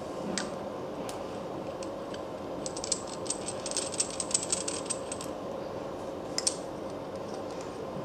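Small metallic clicks and taps of a steel mechanical rebar coupler being assembled by hand as its threaded stud is screwed into the sleeve. A quick run of clicks comes in the middle and a couple more follow later, over a steady background hum.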